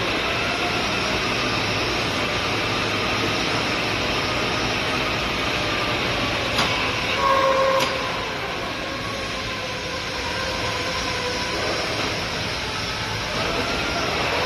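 Metal lathe running, turning a stud bar: a steady mechanical hum and rattle, with a brief louder whine and a couple of sharp clicks about halfway through.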